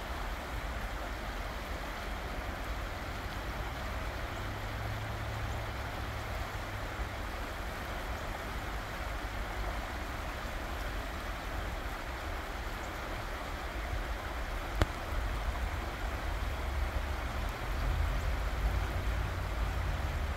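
Creek water rushing steadily over rocks, an even hiss, with a low rumble underneath that grows louder over the last few seconds. One sharp click about fifteen seconds in.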